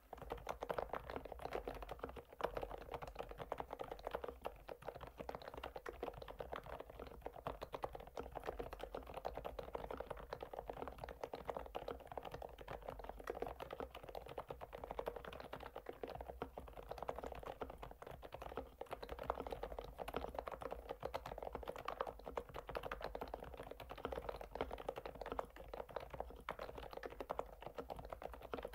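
Fast, continuous typing on an FL-Esports OG-series retro mechanical keyboard with a plastic case: a dense stream of key clacks.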